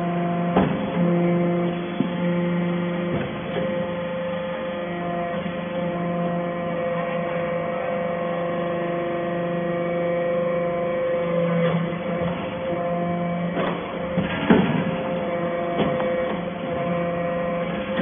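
Hydraulic aluminium-chip briquetting press running: a steady hum from its hydraulic power unit, broken by a few short knocks as the press cycles and briquettes are pushed out, the loudest about fourteen and a half seconds in.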